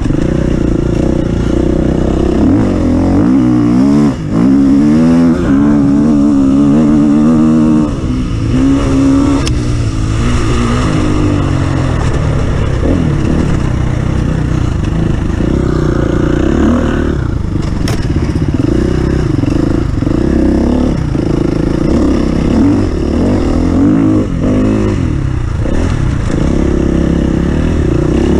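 Off-road racing vehicle's engine running hard, its pitch rising and falling over and over as it revs up, backs off and revs again.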